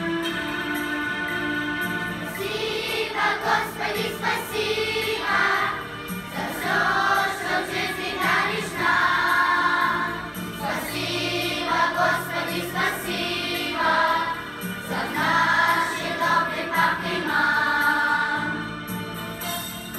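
Children's choir singing a Russian hymn in unison over an instrumental accompaniment; the voices come in about two seconds in after a short instrumental lead-in, then carry on in phrases.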